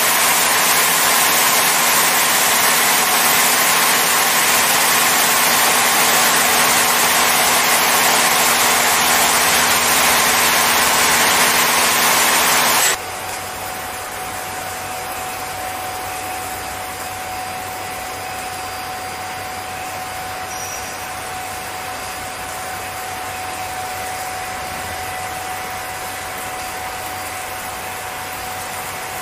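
A touchless car wash machine blasts high-pressure water spray onto a car: a loud, steady hiss over a low pump hum. The spray cuts off abruptly about halfway through. After that the machine runs on with a quieter steady motor hum and a thin whine.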